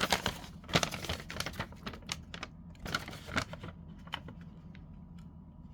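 A paper instruction leaflet being unfolded and handled: irregular crackling and rustling of paper that thins out after about four seconds.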